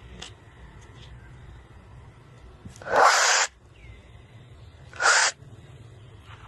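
Baby monkey giving two loud, harsh screeches about two seconds apart, the first lasting about half a second and the second shorter.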